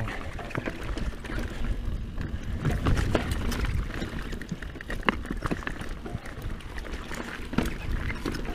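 Scott Genius full-suspension mountain bike riding along a dry, rocky singletrack: tyres rolling over dirt and stones with a steady low rumble, and frequent short clicks and knocks of the chain and frame rattling over the bumps.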